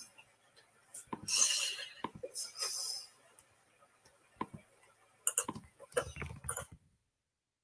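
Scattered small clicks and two short hisses, then a quick cluster of clicks with a low rumble under them, before the sound cuts to dead silence near the end.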